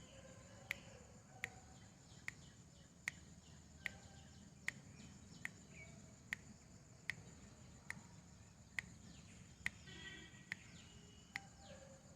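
Near silence during a held breath: faint background with a steady high insect trill, a few faint bird chirps, and a soft regular click a little more than once a second.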